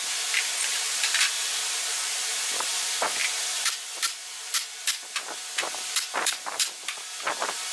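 Steady hiss of compressed air from a pneumatic brad nailer and its air hose. About three and a half seconds in, the nailer starts firing nails into the wood in quick sharp shots, about three a second.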